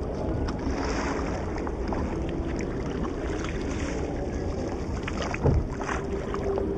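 Small boat moving on the river, water lapping and splashing along the hull with wind on the microphone. One louder thump about five and a half seconds in.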